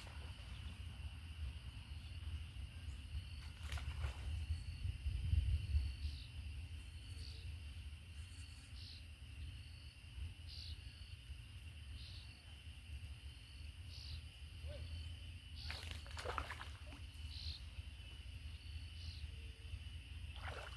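Insects trilling in a steady high drone, with a short higher chirp repeating every one and a half to two seconds, over a low rumble. A few sharp clicks, about four seconds in and again near the end.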